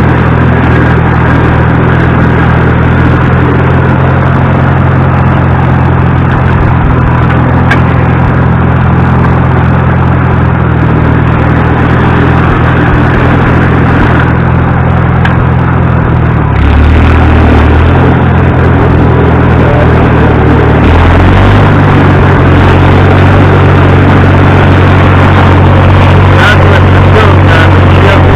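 Farmall 300 tractor's four-cylinder gasoline engine running steadily on nearly full choke. Its note shifts about two-thirds of the way through and settles again shortly after. It only runs almost fully choked because sediment and varnish are clogging the carburetor's jets.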